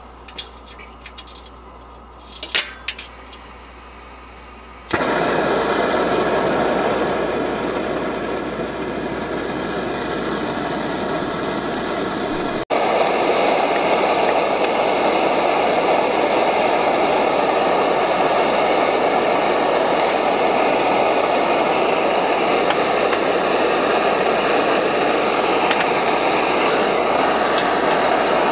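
Small gas-canister camp stove lit about five seconds in, its burner then hissing steadily and loudly under a pie iron; a few sharp clicks come shortly before it lights.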